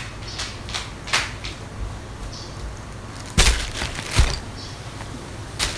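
Plastic bag crinkling and crackling in irregular snaps, with two heavier thuds a little past halfway as bags are set down on a bed.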